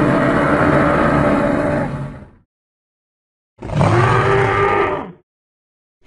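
Allosaurus roar sound effect: a low roar dies away about two seconds in, and after a pause a second, shorter roar follows.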